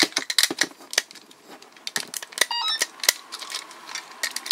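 Hard plastic clicks and rattles as the rotor pods of a Dekaranger Robo patrol helicopter toy are handled and snapped onto its body. The clicks are densest in the first second, with a brief high chirp about two and a half seconds in.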